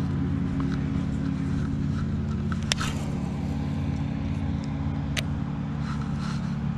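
A steady low mechanical hum, like an engine running at an even speed, with two sharp clicks, the first near the middle and the second about five seconds in.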